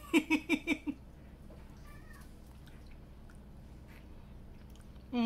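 A woman's short laugh: about five quick pulses in the first second.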